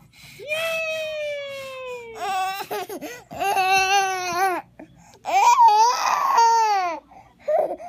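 A baby squealing in long, high-pitched vocal sounds, about four of them, the first gliding down in pitch.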